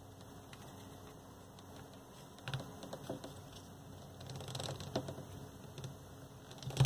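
Hands handling a paper strip and cardstock discs on a cardboard sheet: soft rustling with scattered light clicks and taps, starting about two and a half seconds in.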